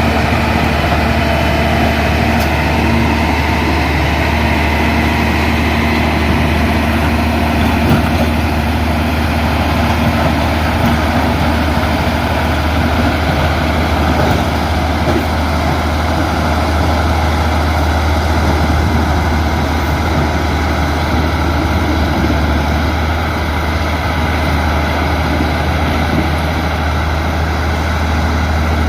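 Motor grader's diesel engine running steadily: a deep, even drone with a constant hum above it.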